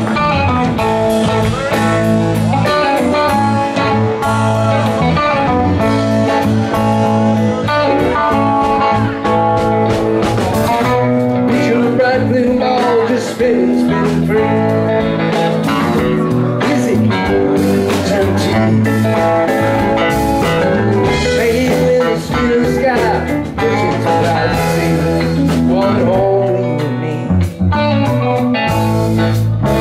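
Live rock band playing: electric guitars, electric bass, keyboards and drum kit, with a sung vocal line.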